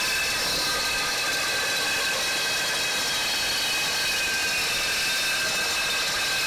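Milwaukee Sawzall reciprocating saw with a Torch Nitrus Carbide blade sawing steadily through a painted steel guardrail post: a continuous rasping cut, with the metal ringing in several steady high tones.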